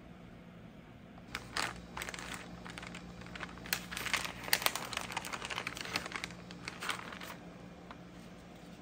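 Paper sheet crinkling and crackling as a gloved hand scrapes body filler on it and peels filler off it. It starts about a second and a half in, is busiest in the middle and dies away near the end.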